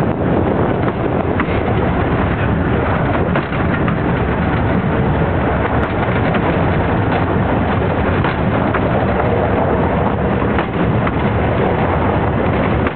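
A moving train's steady running noise, heard from on board: a loud, even rumble and rattle with faint clicks here and there.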